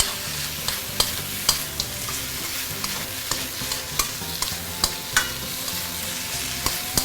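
Chicken pieces, shiitake mushrooms and ginger sizzling in an oiled wok as they are stir-fried, with a steady hiss and irregular sharp clinks of the stirring utensil against the wok.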